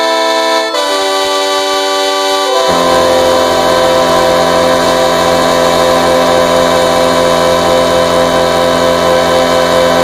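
Giant air horn blowing a loud sustained chord of several notes at once. The chord shifts about a second in, then drops to a deeper, fuller chord that holds steady.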